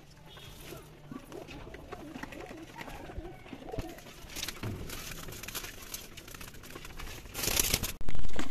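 Domestic pigeons cooing, with a loud rustling burst near the end.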